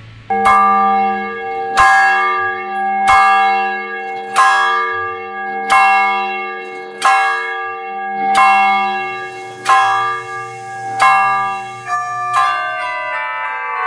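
A church bell tolling on one note, struck nine times about every 1.3 seconds, each stroke ringing on into the next. Near the end the strokes come closer together and the pitch shifts.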